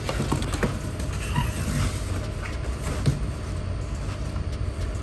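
Cardboard box flaps and packing inserts being handled: scattered light knocks and scrapes, over a steady low background rumble.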